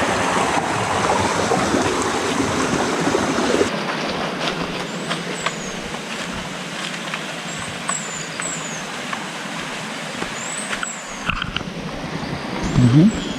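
Stream water running with a steady rushing hiss, and a few short high bird chirps over it.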